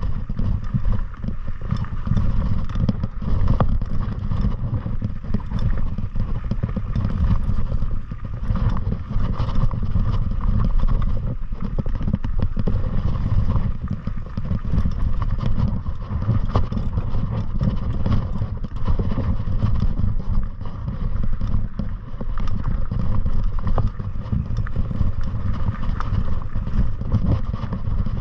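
Heavy wind buffeting on the microphone with constant rattling and clattering, as from riding fast down a rough, rocky trail.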